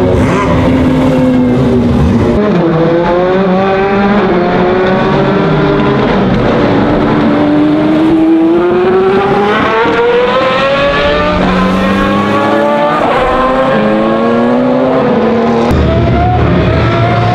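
Lola-Aston Martin B09/60 LMP1 car's 6-litre naturally aspirated V12 howling under acceleration: the revs climb and fall back several times as it shifts gears.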